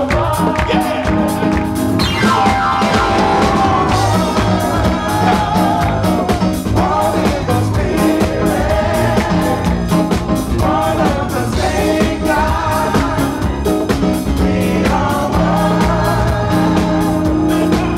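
Live band playing a song with sung vocals over drum kit, bass guitar and keyboards.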